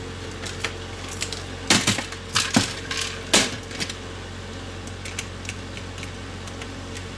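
Screwdriver clicking and knocking against a digital thermostat's plastic housing and circuit board as it is unscrewed and pried apart, with the busiest, loudest clatter between about two and three and a half seconds in.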